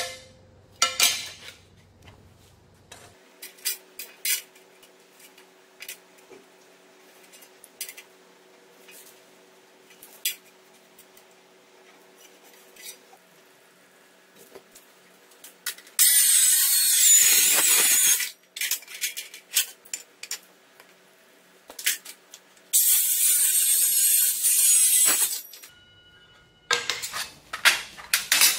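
Handheld electric cutter running through a clamped aluminium sheet in two runs of about two seconds each, a high whine over rasping noise. Before and after, aluminium plates clink and tap as they are handled, most of all near the end.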